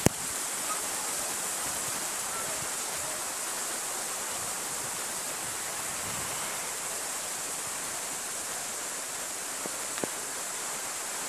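Shallow mountain river rushing over a rocky bed: a steady, even rush of flowing water, with one light tap about ten seconds in.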